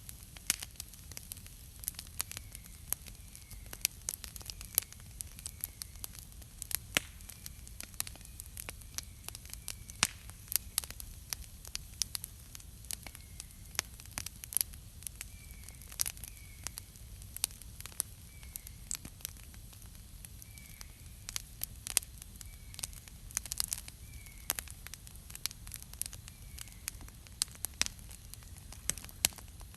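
Wood campfire crackling, with frequent sharp pops and snaps at irregular intervals over a low steady rumble. A faint short chirp repeats about every second or so.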